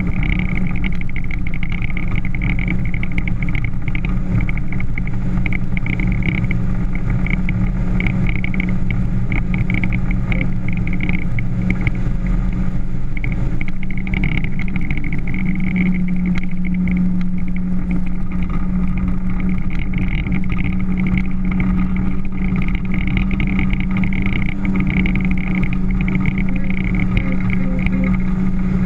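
Motorboat engine running steadily under way, a continuous drone that gets a little stronger about halfway through, over rushing noise.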